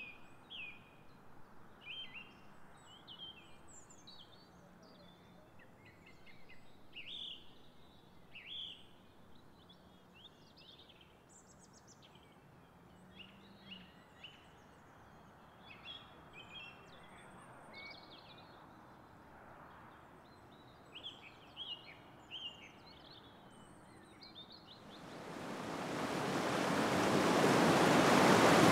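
Songbirds singing: many short chirps and trills from several birds over a faint steady background hiss. Near the end, a loud, even rush of flowing water fades in and drowns them out.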